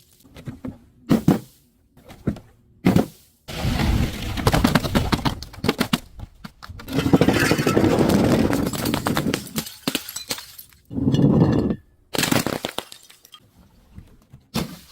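Glass being broken and crushed: a few short sharp cracks, then long bouts of dense crunching and crackling of shards with brief pauses between them.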